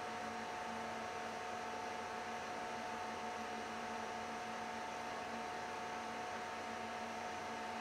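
Supermicro rack server's cooling fans running steadily: an even whir with several steady tones.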